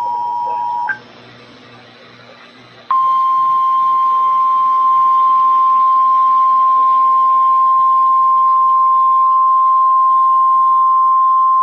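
Emergency Alert System tones over weather radio. A two-pitch attention signal ends about a second in, followed by about two seconds of quieter static hiss. Then a single steady alert tone (1050 Hz weather alert tone) holds for about nine seconds, signalling that a warning bulletin follows.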